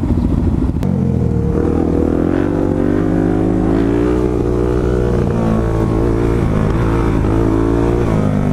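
Suzuki DRZ400SM supermoto's single-cylinder four-stroke engine running with a lumpy low-rev beat, then opened up a little under a second in as the bike pulls away and is held in a wheelie. The engine note rises and falls with the throttle.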